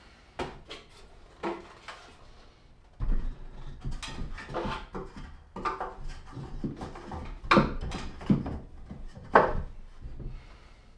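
Irregular wooden knocks and bumps from a heavy wooden frame being handled and manoeuvred into place. They come sparsely at first, then thicker and louder from about three seconds in, with the hardest thuds near the end.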